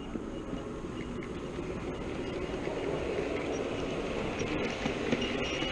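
Model train running along the track past close by, a steady rolling sound of wheels on rail that grows slowly louder as it approaches.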